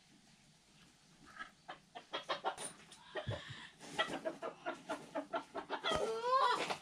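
Chickens clucking in quick runs of short calls, with a louder call rising in pitch near the end.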